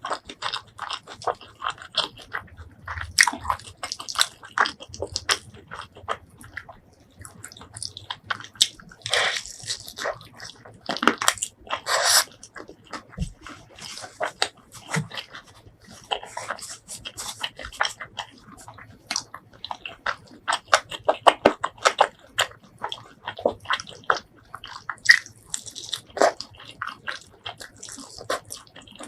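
Close-miked eating: a person chewing and biting food in many quick, irregular clicky sounds, with a few longer, louder noisy stretches about ten seconds in.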